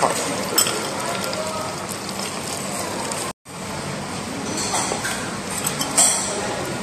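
Steady sizzling hiss of oil in a tabletop deep fryer, with faint chatter and a few sharp clinks of tableware, the loudest near the end. The sound cuts out for an instant about halfway through.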